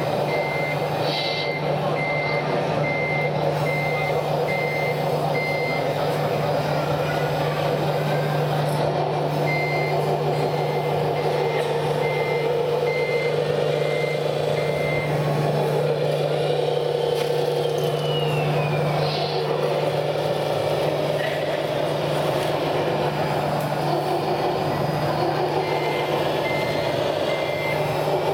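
Reversing beeper of a Wedico CAT 966G RC wheel loader model's sound module, beeping steadily in three runs as the model backs up. Under it runs a steady low engine hum from the same sound module, with a hall's crowd murmur behind.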